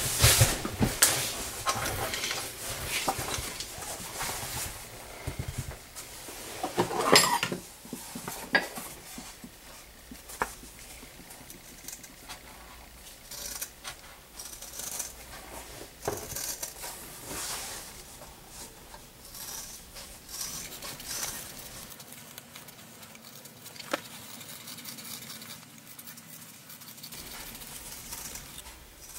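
Leatherworking bench handling sounds: pieces of vegetable-tanned leather, a round template and a clear plastic sheet slid, lifted and set down on the table, with scrapes, rustles and scattered clicks of tools. Loudest just after the start and again about seven seconds in.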